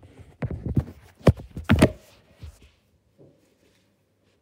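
Clear purple slime slapped and pressed by hand against a wooden floor: a quick run of sharp slaps in the first two seconds, then a few softer ones.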